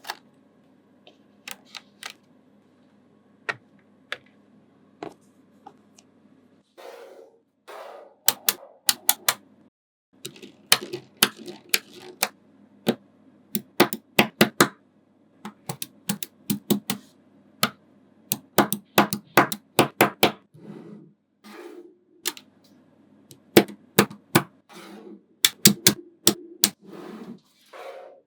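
Small neodymium magnetic balls clicking as they snap onto one another: a few single clicks at first, then quick runs of sharp clicks from about seven seconds in.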